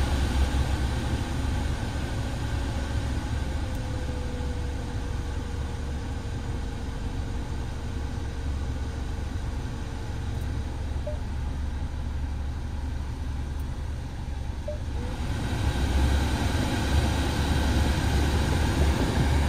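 Newly replaced blower motor of a 2013 Dodge Dart running under test, air rushing steadily out of the dash vents. A faint tone slowly falls in pitch over the first several seconds, the normal coast-down of the blower as its speed is turned down. About fifteen seconds in, the air noise briefly dips and then comes back louder.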